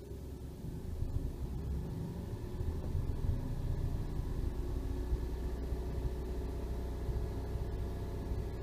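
Toyota Aygo's 1.0-litre three-cylinder petrol engine revved from idle about a second in and held steady at a fast idle of around 1,800 rpm.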